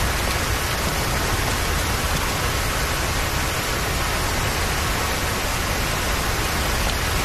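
Heavy rain falling steadily, a dense, even hiss with no change through the whole stretch.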